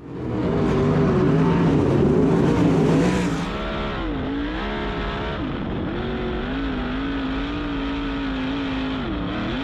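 Onboard sound of a 410 sprint car's methanol-burning V8 engine running hard on a dirt oval, its pitch rising and falling with the throttle. It is loudest for the first three seconds, then dips briefly in pitch about four seconds in, again around five and a half seconds, and once more near the end.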